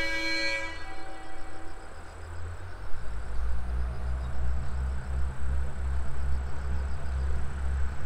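A KiHa 110 diesel railcar sounds its horn in one long note that stops about a second and a half in. From about three seconds in, its diesel engine runs with a low, pulsing rumble as the train moves off from the station.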